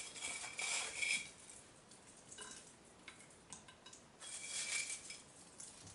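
Croutons scooped by hand off a paper towel and scattered onto a plate: faint rustling of the paper and light clicking patter of the bread cubes, in a few short bursts.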